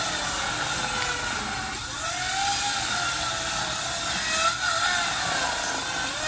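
A motor running with its pitch slowly rising and falling, over a steady hiss.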